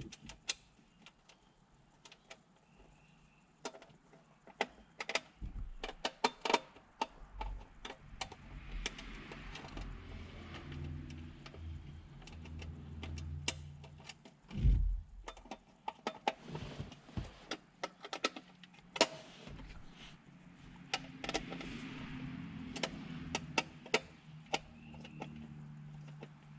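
Irregular clicks, taps and rattles of plastic dash trim and mounting hardware being handled and fitted, with stretches of rustling and scraping and one heavier thump about fifteen seconds in.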